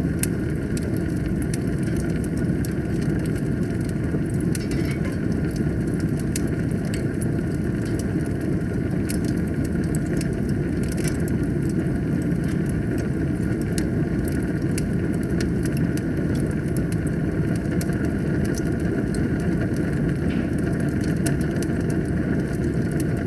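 Wood fire burning in a fireplace: a steady low rumble of flames with frequent small crackles and pops from the burning logs.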